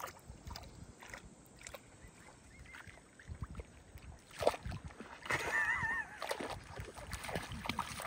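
Shallow pond water sloshing and splashing as juvenile emus wade through it, with scattered short splashes. A short warbling call sounds about five and a half seconds in.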